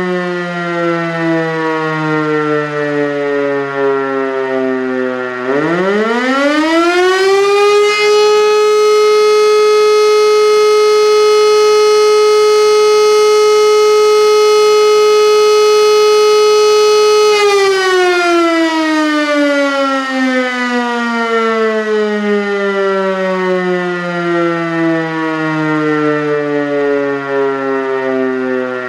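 Siemens E57 siren sounding the fire-alarm signal. Its wail is dying away at first, then about five seconds in it winds up sharply to a steady high tone. It holds that tone for about ten seconds, then winds down slowly in a long falling wail.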